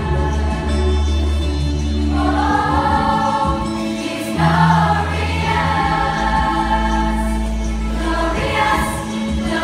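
Youth choir singing in harmony over a sustained low bass accompaniment, the voices swelling louder about two seconds in and again a little after four seconds.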